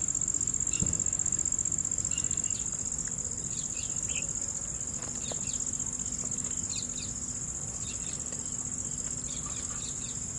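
Steady high-pitched trill of insects that never lets up, with short bird chirps scattered through it.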